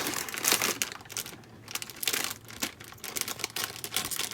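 Crinkling and rustling of plastic packaging as the bags of Lego pieces are handled, with irregular small clicks.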